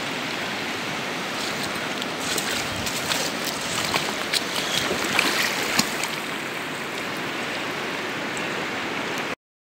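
Shallow river running over stones, a steady rush of water, with a few sharp splashes close by between about two and six seconds in as a caught trout is handled in the water. The sound cuts off suddenly just before the end.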